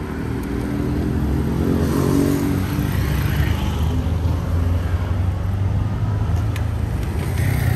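Motorcycle engine running close by, a steady low engine hum with street traffic.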